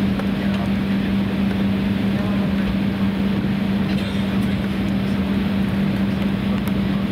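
Steady cabin noise inside an Embraer 190 taxiing with its turbofan engines at idle: a constant low drone with an even rushing hiss over it.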